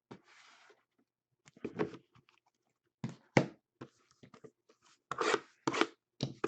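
Trading cards being handled: cards sliding and rubbing against one another in a series of short scrapes and brushes, the loudest a little after five seconds in.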